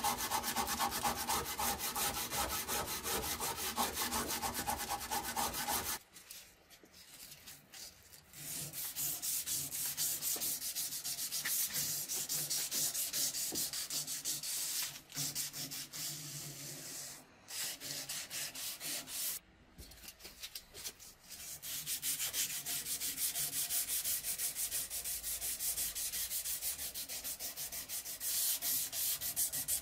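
A hand-held abrasive scrubbed back and forth along the rusted steel blade of a Mauser 98K bayonet in fast, even strokes, taking off rust and pitting, with a few short pauses along the way.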